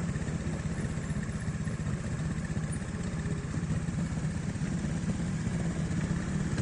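Trials motorcycle's single-cylinder engine running steadily at low revs, close by, with an even, rapid firing pulse.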